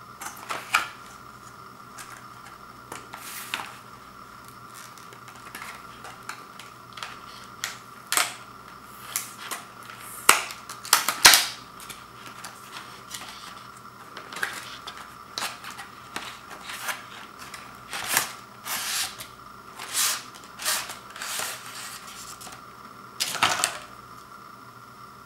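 Stiff plastic blister packaging being handled and pulled open: a series of irregular sharp crackles, snaps and clicks, thickest in the middle, with a last burst near the end as the steel-frame wiper blade comes free.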